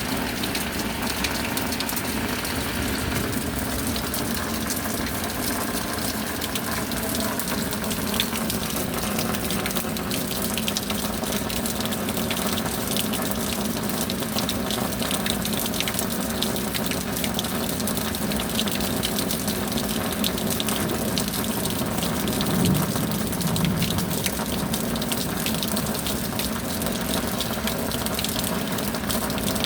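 Steady rain falling: an even hiss of water with many small drop hits, swelling slightly about three-quarters of the way in.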